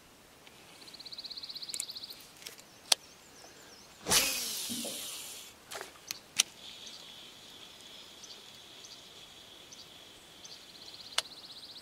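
Casting and reeling with a fishing rod: a sudden whoosh of the cast about four seconds in, a few sharp clicks, then the reel's steady high whir as the line is wound back in.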